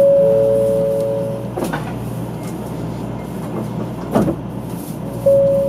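Electronic two-note chime, a higher note falling to a lower one, rings once; the higher note starts again near the end. Two short knocks come at about two and four seconds in, over the steady low hum of the stopped 500-series Shinkansen.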